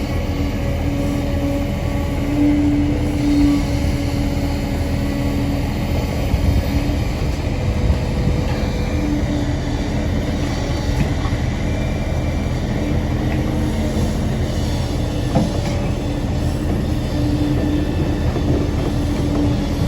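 Kobelco crawler excavator working: a steady engine and hydraulic drone with a held tone that fades in and out, and a few sharp metallic knocks, the clearest about three-quarters of the way through.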